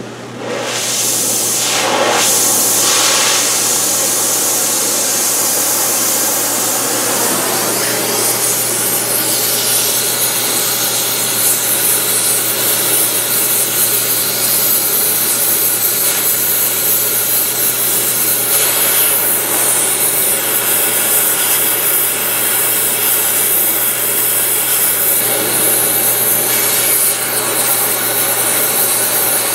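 Oxy-fuel cutting torch hissing steadily as its flame heats rusted truck bed bolts.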